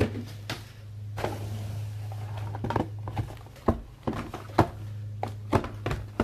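Cardboard trading-card boxes being handled and set down on a table: a run of irregular light knocks and thunks with a brief rustle, over a steady low electrical hum.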